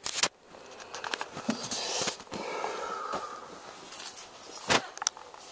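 Handling noise from a paintball marker and its air line: a sharp click at the start, a soft hiss in the middle, and a few more clicks and knocks, the loudest just before the end.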